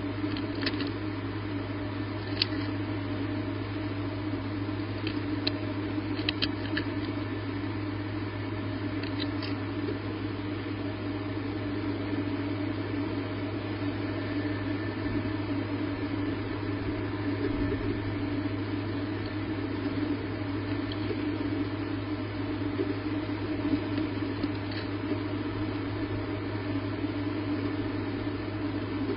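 Steady low electrical hum with hiss, with a few faint brief clicks.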